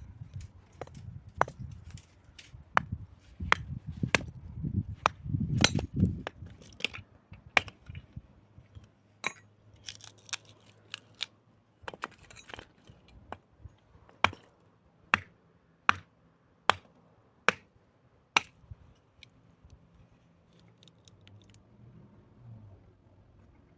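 A series of sharp knocks and clicks, with a low rumble under the first six seconds. Later comes a steady run of single knocks a little under a second apart, then a few faint ticks near the end.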